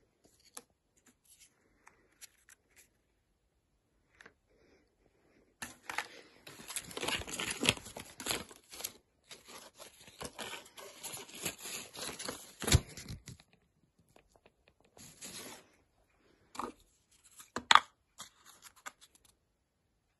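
Plastic toy packaging being torn open and crinkled by hand: a few small crinkles and clicks, then about eight seconds of steady tearing and rustling, then scattered crinkles near the end.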